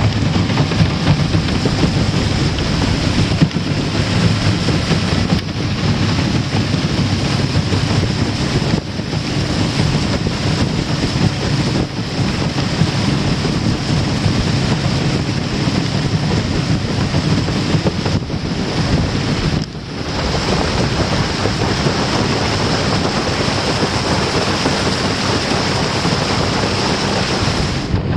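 Small outboard-powered skiff running at speed, about 4,000 rpm and 20 mph. Heavy wind buffets the microphone over rushing water from the hull and wake, with the outboard's steady drone underneath.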